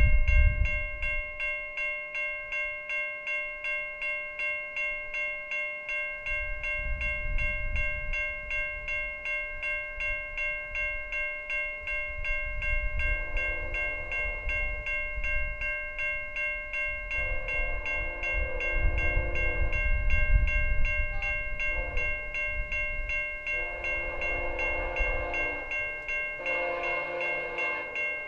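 Level-crossing warning bell ringing steadily in rapid, even strokes. About halfway through, the approaching VIA P42DC locomotive's Nathan K5CA-LS five-chime horn sounds the crossing signal: two long blasts, a short one, then long blasts again, growing louder as the train nears.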